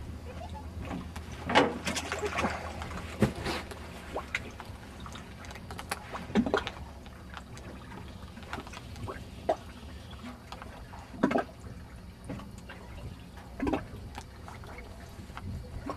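Small waves lapping and slapping against a boat's hull in irregular splashes, over a low steady hum that fades about four seconds in.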